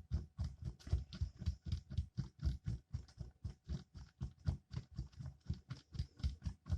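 Spatula stirring denture repair acrylic (powder and liquid) in a small mixing tray, a quick steady series of light taps and scrapes, about five or six strokes a second, while the mix is still too thin to be creamy.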